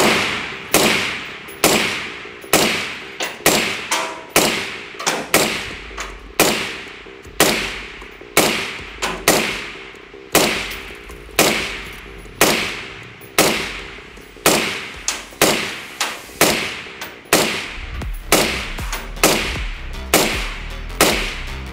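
5.56 NATO AR-style rifle fired semi-automatically through a Troy Industries TPRS Kryptos reflex suppressor: a steady string of about thirty suppressed shots, roughly one and a half a second, each a sharp crack with a short ringing tail.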